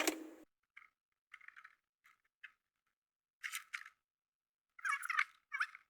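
Plastic dashboard trim being handled and worked loose, giving a series of short irregular clicks and creaky squeaks.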